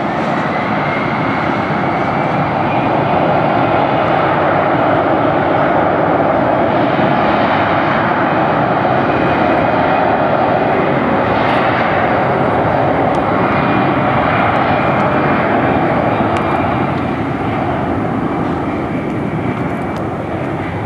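Airbus A320 jet engines at takeoff power during the takeoff roll: a loud, steady rush of engine noise with a faint whine that rises slightly in the first two seconds, easing a little near the end.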